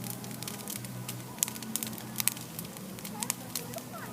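Large bonfire crackling, with irregular sharp pops from the burning wood.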